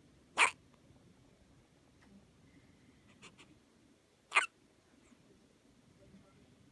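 Two short, sharp hiccups about four seconds apart.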